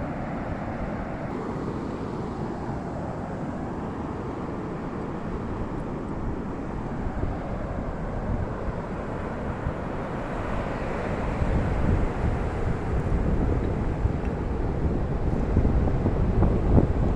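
Wind buffeting the microphone, a steady rushing noise that grows louder and gustier over the second half.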